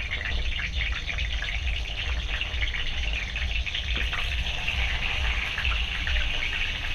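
Stuffed brinjals sizzling and crackling in very hot oil in a kadhai as they are put in one by one. The steady frying crackle grows a little louder about five seconds in.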